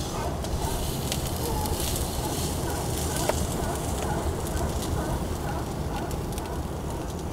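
Open wood fire crackling, with scattered small pops over a steady low rumble.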